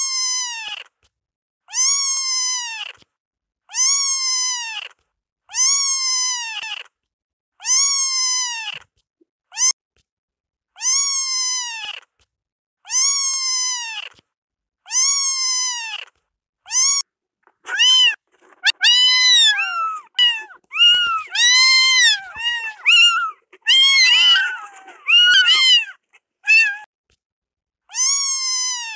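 Kitten meow sound effect, the same short high mew repeated about every two seconds, each rising then falling in pitch. A little past halfway the meows come faster, higher-pitched and overlapping for several seconds, then the regular single meow returns near the end.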